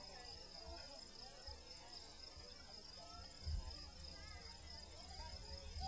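Steady high-pitched insect chorus outdoors, over a low rumble, with a single dull thump about three and a half seconds in.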